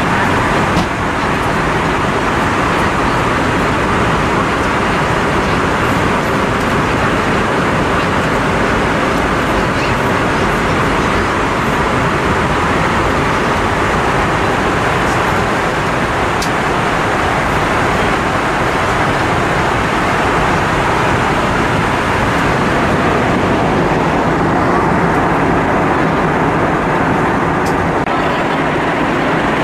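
Steady, loud rushing cabin noise inside an Airbus A320-232 in flight: airflow and engine noise heard from a passenger seat.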